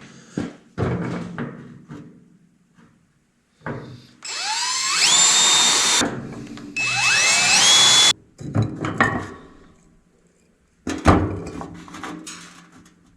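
A power drill runs twice for about two seconds each, rising in pitch as it spins up to speed each time. Short knocks and clatter of handling come before and after the runs.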